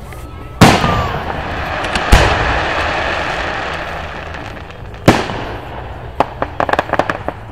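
Aerial fireworks bursting: three loud bangs, the first two about a second and a half apart and the third about halfway through, each trailing off in a long fading hiss. Near the end comes a quick string of smaller pops.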